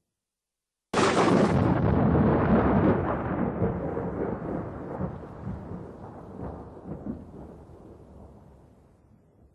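A thunderclap: a sudden loud crack about a second in, then a long rolling rumble with a few lesser cracks, fading away over several seconds.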